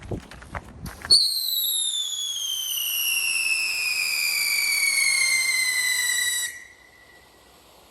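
Firework fountain's screaming whistle effect: after a few sharp clicks, one loud whistle starts suddenly about a second in and glides steadily down in pitch for about five seconds before cutting off.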